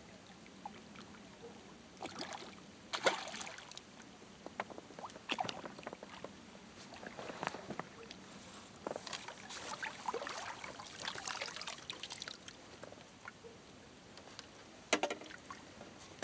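Irregular splashing and sloshing of water as a hooked bream is drawn into a landing net and the net is lifted from the lake, busiest toward the middle, with one sharp click near the end.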